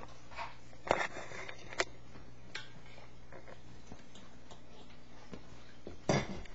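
Handling noise from a handheld camera as it is carried about: a few sharp clicks and knocks, three in the first three seconds and a louder one near the end, over a low steady hum.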